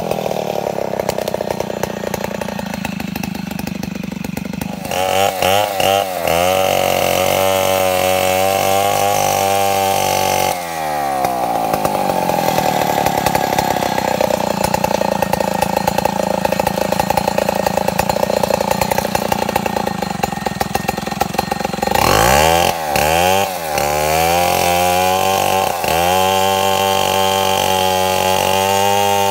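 Stihl chainsaw cutting a log. Its engine pitch sinks over the first few seconds, then the revs rise and fall in short blips around five seconds in and again around twenty-three seconds, holding steady and high in between.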